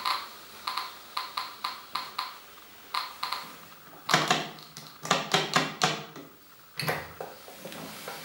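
An SV-500 Geiger counter's speaker clicks irregularly, a few short ticks a second, each tick a count from its SBT-10 pancake tube. About four seconds in, the ticking gives way to louder knocks and rattles as hands work the counter's front-panel switches and move the probe and its cable.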